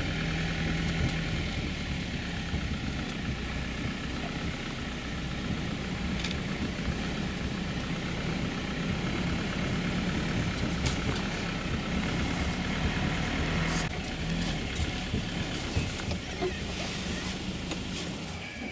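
Open safari vehicle's engine running steadily as it drives along a dirt bush track.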